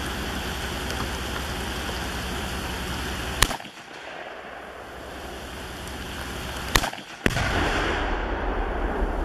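Steady background hiss, a sharp crack about three and a half seconds in, then two sharp reports about half a second apart, followed by a long rumbling boom: about 15 pounds of Tannerite detonating when shot.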